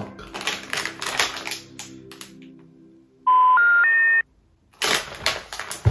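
Three loud electronic beeps in a rising step, each note higher than the last and the three lasting about a second together. Before them and again near the end, a plastic snack packet crinkles as it is handled.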